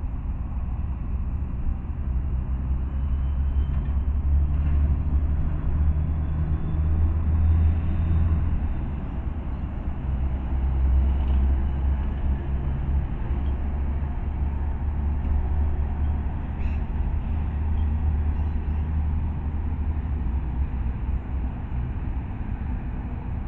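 Road traffic rumbling steadily, with the low diesel drone of a B-double container truck driving past.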